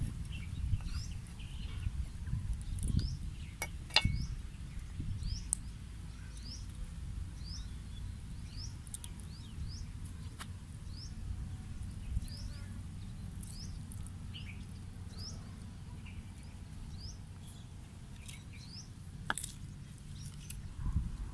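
A bird repeating a short, quick chirp about once a second, over a steady low rumble, with a couple of sharp knocks.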